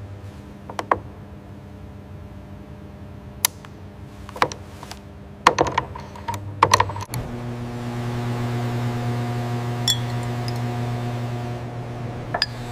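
Scattered light clicks and taps of handled metal tools, then a steady machine hum starts about seven seconds in.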